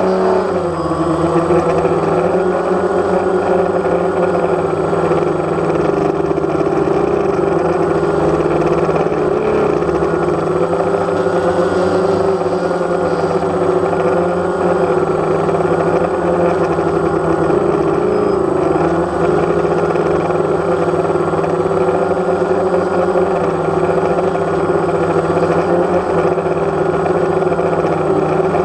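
DJI Phantom quadcopter's motors and propellers whirring steadily close to the microphone, the pitch dipping about a second in and then holding level with slight wavers as the drone hovers.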